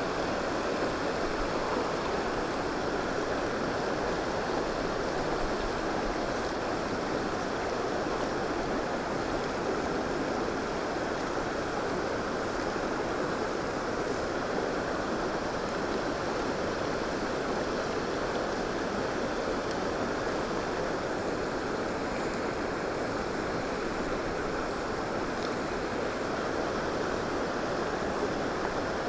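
Shallow stream running over a stony bed, with a small cascade spilling in from the bank: a steady, even rush of water.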